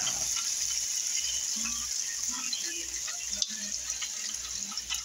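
Hot oil sizzling steadily in an electric deep fryer around a cornbread-breaded shellcracker that is frying golden brown, with small crackles throughout.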